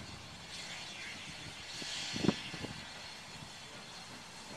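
Steam hissing from the standing NZR Ja-class steam locomotive 1275, swelling about two seconds in, with a single short low thump at the height of the swell.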